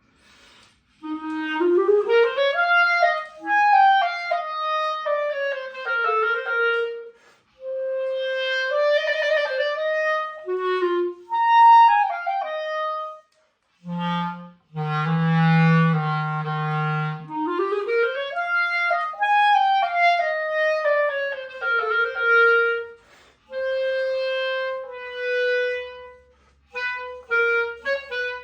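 Solo clarinet playing: a run that climbs and then falls back, a low held note about halfway through, then the same run again, ending in shorter separate notes.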